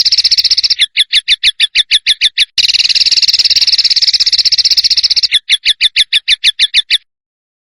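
Recorded songbird call, loud: a fast rattling trill alternating with runs of sharp, rapid notes at about eight a second, the pattern given twice, cutting off suddenly near the end.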